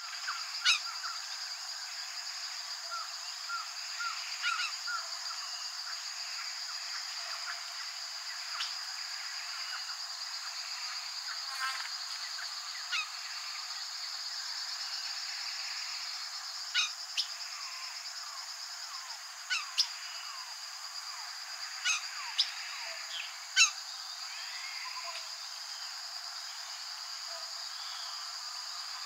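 Crimson-fronted cardinal (Xingu cardinal) calling: scattered short chirping notes, with a few sharp, louder calls in the second half, over a steady high-pitched insect buzz.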